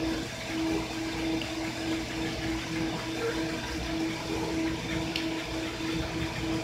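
Flatbed CNC cutting table working: the tool head moves in short stop-start strokes, its drive motors giving a hum that switches on and off about twice a second, over a steady rushing machine noise.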